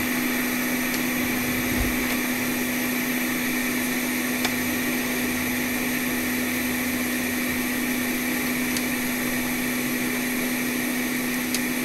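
A small electric blower running steadily: a whirring hiss over a steady low hum, with a few faint ticks.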